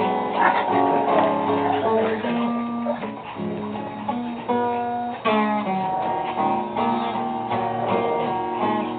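Acoustic guitar music: a run of plucked and strummed notes, changing pitch every fraction of a second.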